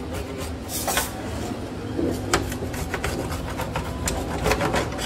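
Kitchen work clattering at a street-food stall: scattered knocks, clinks and scrapes of utensils over a low steady hum.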